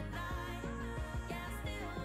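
Quiet background music: held melodic notes over a steady low bass.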